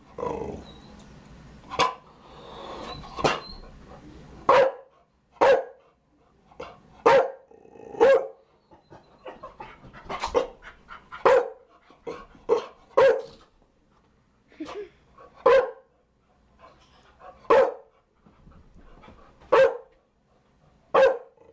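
Chow Chow dog barking: single short barks, one roughly every second or so at an uneven pace.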